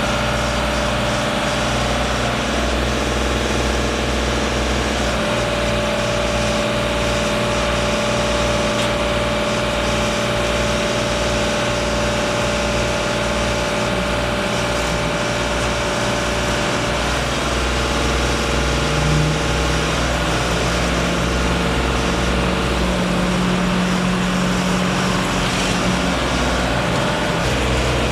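Heavy engines running steadily, several at once, with a deep low throb. One engine note rises and holds higher about eighteen seconds in, then drops back a few seconds before the end.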